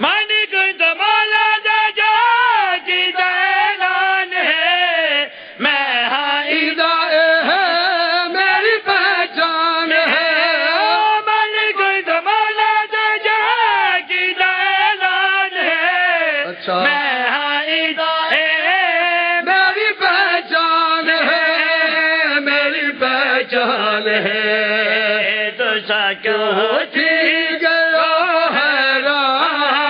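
A man's voice chanting verse in a drawn-out, melodic recitation into a microphone, the sung style of a zakir's recitation at a majlis. The pitch wavers on long held notes, with a brief pause for breath about five seconds in and again about midway.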